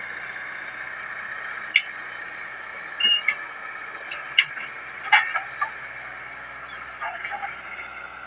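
Hitachi 110 excavator running with a steady drone, with a few sharp clicks or knocks and brief high chirps over it.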